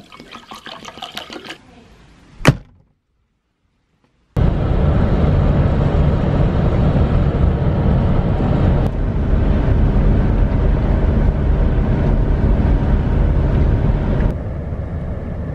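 Water swirling and sloshing in a drinking glass, then a single sharp clack. After a gap of silence, the steady, loud rumble of road and engine noise inside a moving van, which drops in level near the end.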